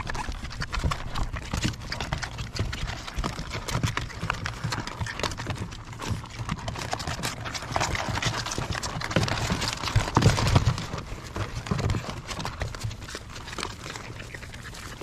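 A litter of French bulldog puppies suckling from their mother, a dense run of quick wet clicks and smacks, loudest about ten seconds in.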